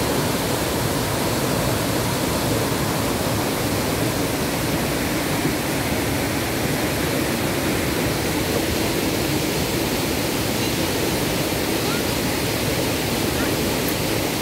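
Steady rush of white water pouring over rocks in river rapids and a low cascade.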